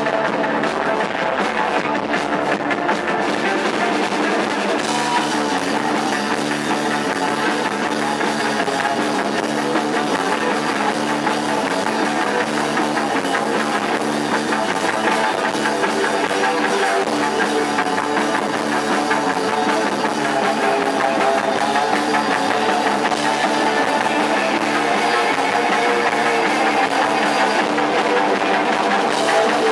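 Post-punk rock band playing live, with guitar and drum kit.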